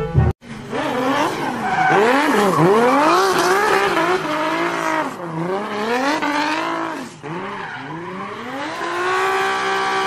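Drift car's engine revving hard, its pitch rising and falling again and again as the car slides, with the tyres squealing.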